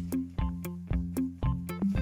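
Background music: a bouncy tune of short, evenly spaced notes over a steady bass line.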